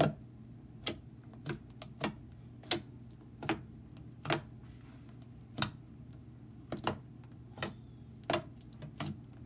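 Fingertips poking into soft glittery glue-and-liquid-starch slime, making sharp little wet pops and clicks at an irregular pace of one to two a second.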